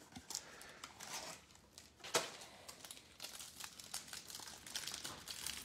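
Faint crinkling of the plastic shrink-wrap around a stack of football trading cards as fingers handle it and work it open. There are scattered small crackles, one sharper snap about two seconds in, and denser crinkling towards the end.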